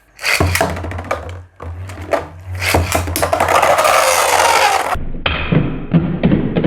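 Beyblade spinning tops launched into a plastic stadium, clacking sharply as they strike each other, with a dense hiss as they spin. About five seconds in, the sound turns abruptly duller.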